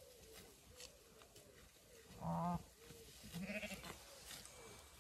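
Zwartbles sheep bleating: one loud, wavering bleat about two seconds in, then a second, quieter bleat about a second later. Faint clicks of ewes tearing grass run underneath.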